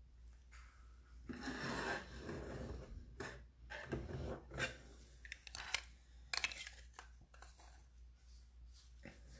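Off-camera handling noise: a stretch of rustling and scraping, then a scatter of light clicks and knocks.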